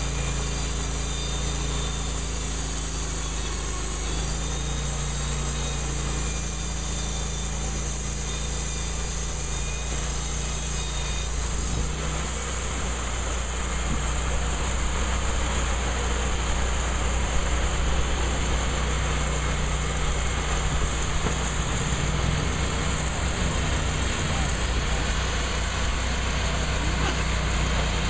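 EZ Boardwalk portable band sawmill running steadily, its engine-driven band blade cutting lengthwise through a log as the saw head travels along the track; the sound grows slightly louder about twelve seconds in.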